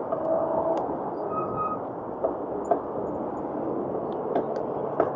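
Steady city street traffic noise with a few light clicks, heard from a slow-moving electric dirt bike.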